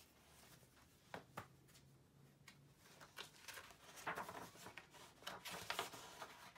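Pages of a hardcover picture book being handled and turned: a few soft taps about a second in, then faint paper rustling that grows fuller over the last few seconds.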